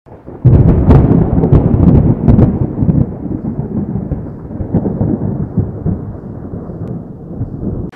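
Thunder: a sudden loud clap about half a second in, sharp crackles over the next two seconds, then a long rolling rumble that slowly fades.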